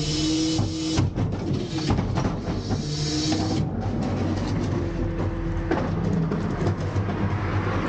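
McNeilus rear-loader packer panel sweeping down into the hopper under hydraulic power, with the truck's engine and hydraulics running and steady tones that shift in pitch. Frequent metallic clicks and knocks throughout, and a hiss that stops about three and a half seconds in.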